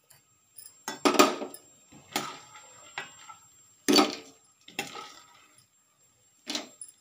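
Steel spoon scraping and clinking against a stainless steel pan while fried dried turkey berries are scooped out. There are about six separate strokes, irregularly spaced about a second apart.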